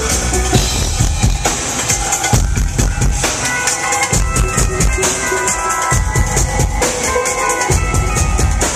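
Loud live electronic dance music with a drum kit playing a steady beat of kick and snare under melodic lines. The deep bass drops out for about two seconds midway, then comes back in.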